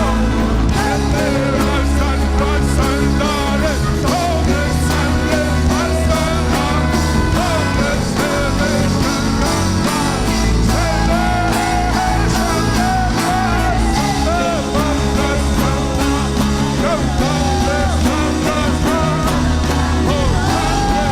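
Worship music: a band playing with a voice singing over it, steady and continuous.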